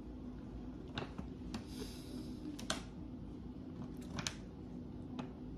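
A few light clicks and taps with a brief rustle about two seconds in, as a cardboard coffee box is handled, over a faint steady hum.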